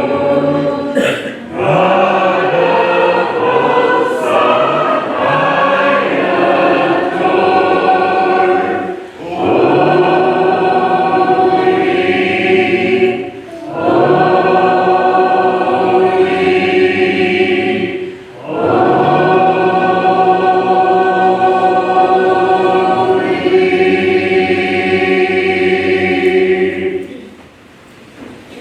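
Congregation singing a hymn a cappella in long phrases with brief breaks between them; the hymn ends a second or so before the end.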